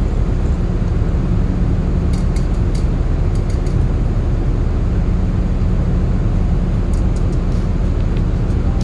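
Steady low drone of a ship's engines, even and unbroken, with a few faint light clicks over it.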